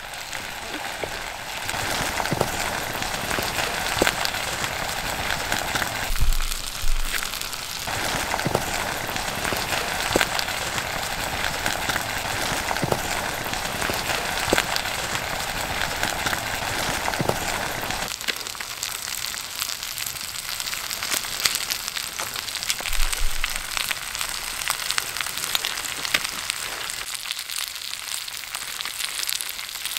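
Food sizzling in a cast iron Dutch oven over a wood campfire: a steady frying hiss dotted with sharp clicks and crackles. It grows thinner and quieter about two-thirds of the way through.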